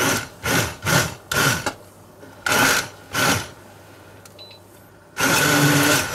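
Immersion blender puréeing cooked sour cherries in a steel pot: six short pulses in the first three and a half seconds, then running continuously from about five seconds in.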